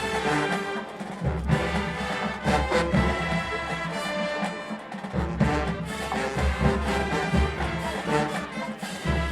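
HBCU marching band playing: brass horns holding loud chords over heavy, repeated drum hits from the drumline.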